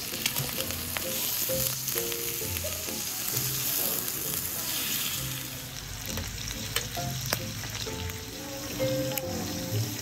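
Pork belly slices sizzling steadily in their fat on a hot grill pan, with a few sharp clicks.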